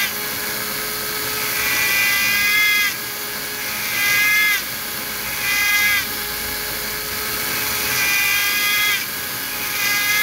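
Handheld mini rotary drill with a fine bit whining steadily, growing louder in several short passes as the bit cuts diagonal tread grooves into a small replica truck tire.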